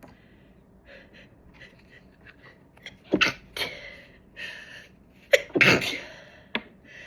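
A woman sneezing: two loud sneezes, about three seconds and five and a half seconds in, each set up by quick catching in-breaths.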